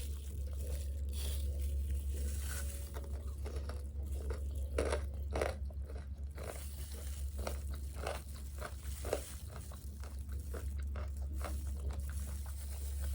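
Close-miked biting and chewing of crispy fried food: a rapid run of crunches that starts about four seconds in and is loudest around five seconds, over a steady low hum.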